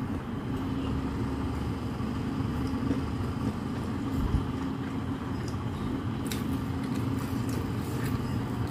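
A steady low hum with a faint held tone, even in loudness throughout, with a few faint clicks near the end.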